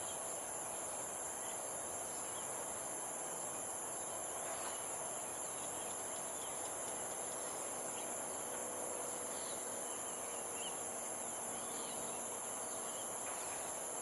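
Steady, high-pitched drone of insects, with a few faint short bird chirps scattered through.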